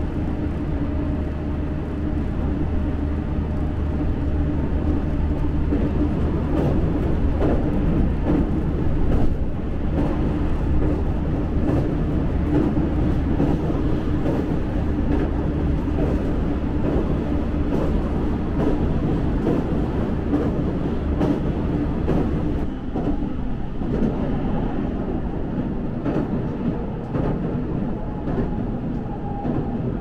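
A JR Central 313-series electric local train running along the track, heard from aboard: a steady rumble and hum with frequent clicks from the wheels on the rails.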